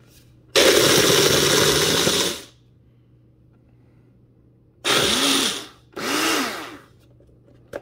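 Mainstays personal blender's motor run in three pulses, crushing ice with liquid in its cup: one about two seconds long, then two short ones a few seconds later, the pitch rising and falling with each short press.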